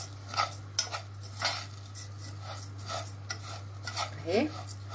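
A metal spoon scraping and stirring vermicelli in the bottom of a stainless steel pot, in irregular strokes about one or two a second, as the vermicelli toasts in ghee and starts to brown.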